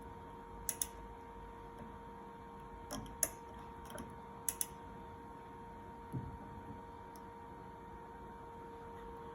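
Several sharp clicks, some in quick pairs, and a softer thump about six seconds in, as an electric power steering column is switched on and powered up from a small 7 Ah battery, over a steady electrical hum.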